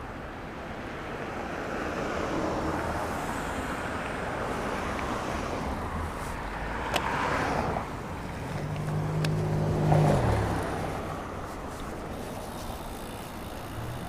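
Steady wind and road noise while riding a bicycle, with a motor vehicle passing close about two-thirds of the way in: its engine hum builds, peaks, then fades. A couple of sharp clicks come just before it.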